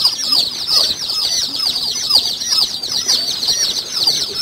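A brooder full of ayam kampung (Indonesian native chicken) chicks peeping nonstop, many short, high, falling chirps overlapping into a continuous chorus.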